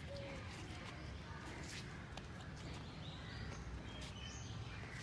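Outdoor ambience: a steady low rumble with birds calling now and then, and a few faint taps.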